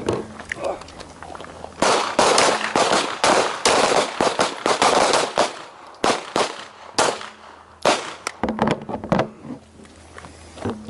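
Pistol shots from several shooters on a firing line, each firing two rounds one-handed with the support hand. A rapid, overlapping spatter of shots begins about two seconds in, then thins to a few scattered shots.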